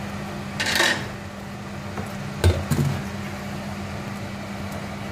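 Wooden spoon stirring spaghetti in a frying pan: a short scrape about a second in and a couple of knocks against the pan around two and a half seconds, over a steady low hum.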